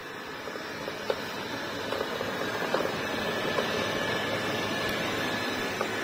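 ILIFE T20s robot vacuum running as it vacuums and mops: a steady whir of its fan and brushes with a faint high whine, growing louder as it drives closer.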